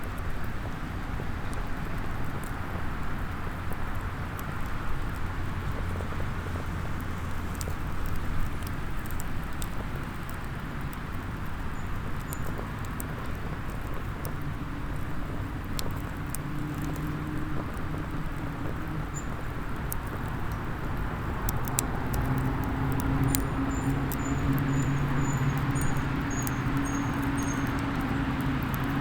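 Small wood fire crackling and popping in a SOTO mini hexagonal fire pit, with sharp cracks scattered throughout over a steady wash of background noise. From about halfway in, a low engine hum comes up and grows stronger near the end.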